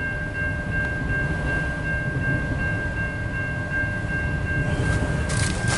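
Long freight train of autorack car carriers rolling steadily past, with a continuous low rumble of wheels and cars. A thin steady high tone sounds over the rumble.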